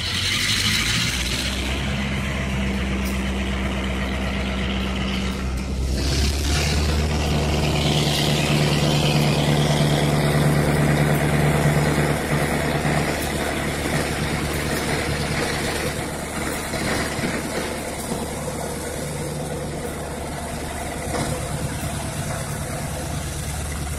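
Heavy diesel engine of a railway locomotive running steadily, a deep hum with a droning note that steps up in pitch about six seconds in, grows a little louder, then eases off slightly in the second half.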